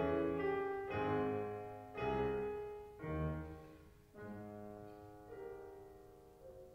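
Solo grand piano playing a slow classical piece, heard from the audience seats: chords struck about once a second, growing softer and held longer over the last few seconds.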